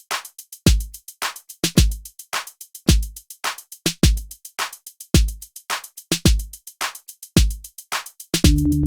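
Electronic drum-machine beat: a deep kick about once a second with quicker sharp hi-hat and snare hits between. Near the end a sustained low synth bass chord comes in.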